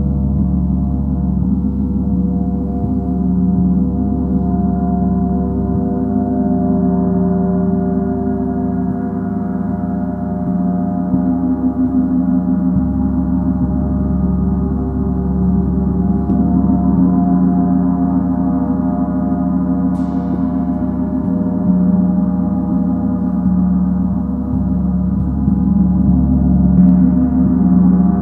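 Gong played continuously, a sustained wash of many overlapping steady tones over a deep hum, with a light strike about 20 seconds in and another near the end.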